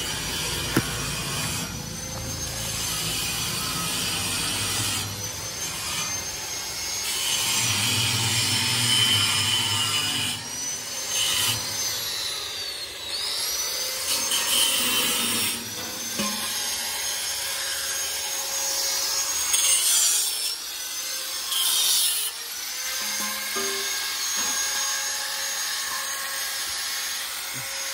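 Electric angle grinder working on steel pipe: a high whine over a gritty grinding hiss, the pitch sagging when the disc is pressed into the metal, with a few short breaks as it is lifted off.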